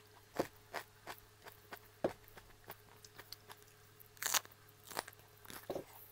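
Crisp crunching bites and chewing of a raw mini sweet pepper: irregular crunches, the loudest bite about four seconds in.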